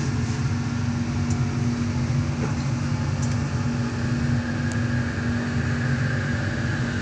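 Kelana Jaya Line LRT train running along elevated track, heard from inside the carriage: a steady hum and rumble, with a higher whine growing louder about halfway through.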